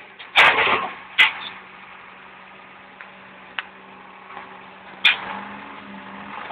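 Case 580G backhoe loader's engine running steadily, heard from the cab, with loud clanks and knocks: two in the first second and a half and another about five seconds in.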